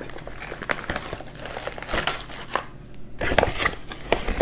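Thick plastic MRE outer bag crinkling and rustling as it is pulled open and its contents slide out, with a few sharper clacks of cardboard cartons about two and three seconds in.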